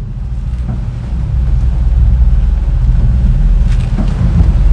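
Steady low drone of a catamaran's inboard engine running while the boat motors along.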